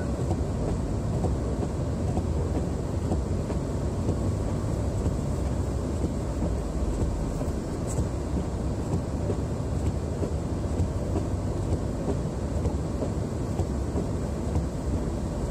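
Toyota Tacoma pickup ploughing through deep powder snow, heard from inside the cab: a steady low rumble of the running truck with snow thrown up against its front and windshield.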